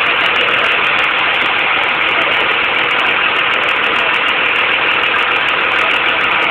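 School bus engine idling steadily.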